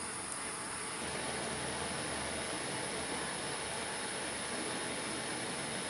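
Torch flame hissing steadily as it heats a stainless steel spoon of scrap aluminum alloy to melt it.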